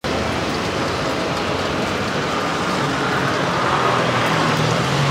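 Steady roadside traffic noise, with music fading in near the end.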